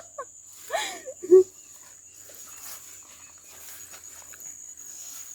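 Short voiced sounds with falling pitch about a second in, then faint rustling steps through farm vegetation under a steady, high-pitched insect drone.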